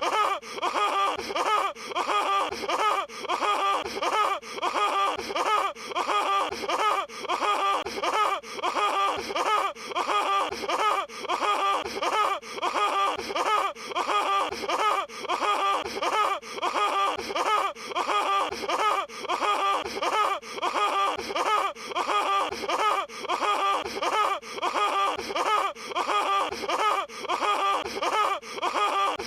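Patrick Star's cartoon laugh from SpongeBob SquarePants, a voiced 'ha-ha-ha' played as a loop so that the same laugh repeats over and over in an even rhythm.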